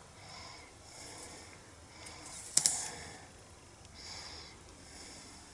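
Faint paper handling: a cardstock sentiment strip is lifted with a pointed craft tool and pressed down onto the card front, in a few soft rustles with one sharp tap about two and a half seconds in.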